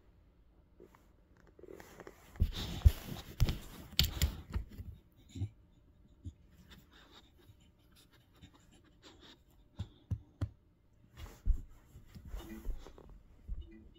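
Pit bull puppy sniffing and nosing close to the microphone: scratchy rustling with a few bumps, in a spell about two to five seconds in and another near the end.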